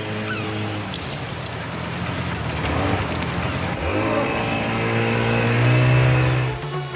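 Motorboat engine running over the wash of the sea. Its hum fades about a second in, then returns about four seconds in, rising slightly in pitch and getting louder toward the end.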